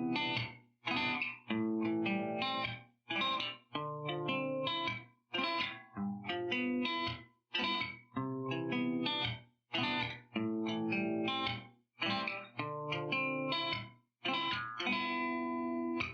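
Background music led by a plucked guitar with a chorus effect, played in short phrases broken by brief gaps.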